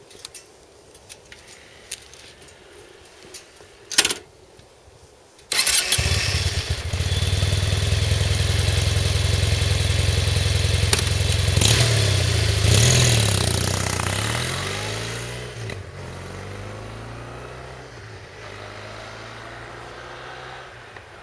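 Kawasaki W800's air-cooled parallel-twin engine on its stock mufflers, with a few light clicks before it fires and catches about five seconds in. It runs steadily for several seconds, its pitch wavers as the bike pulls away, and the exhaust note fades as it rides off.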